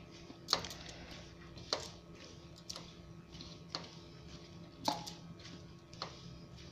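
Hand mixing flour and water into samosa dough in a steel bowl, with a sharp click about once a second as the bangled wrist and hand knock against the bowl.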